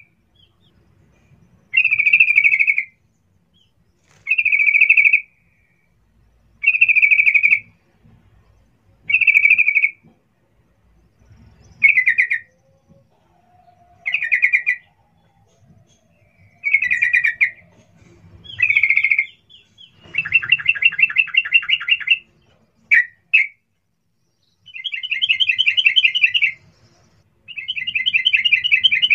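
Yellow-vented bulbul (trucukan) calling loudly: short bubbly phrases of about a second each, repeated about every two and a half seconds. From about two-thirds in the phrases give way to longer rattling trills and a couple of clipped notes.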